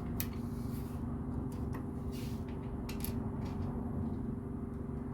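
LEGO plastic pieces being sorted and handled, with several short, sharp clicks and rattles over a steady low background hum.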